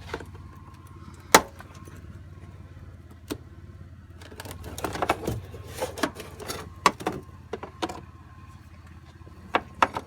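Clicks and rattles of plastic car trim being pulled and handled, with a sharp click about a second in and a busier stretch of clattering in the middle, over a steady low hum.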